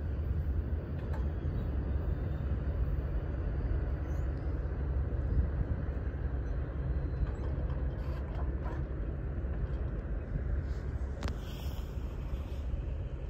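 Steady low rumble of a long intermodal freight train moving away after it has cleared the crossing, with one sharp click about eleven seconds in.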